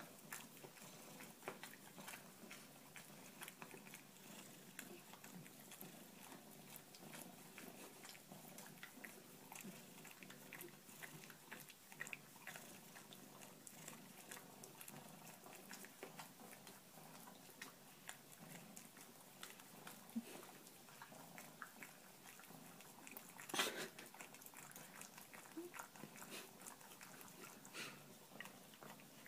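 Faint, rapid wet clicks and smacks of a pet chewing and biting, with one louder knock about three quarters of the way through.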